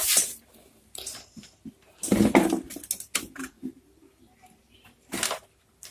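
Handling noise of cables and plugs being fitted to a set-top box receiver: a few separate bursts of rustling and clatter with small clicks between them, the loudest about two seconds in.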